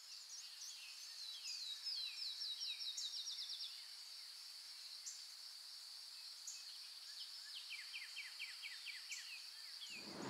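Faint countryside ambience: a steady high insect drone, with a small bird singing two fast trills of quickly repeated falling notes, one about two seconds in and one near the end, and a few single chirps between.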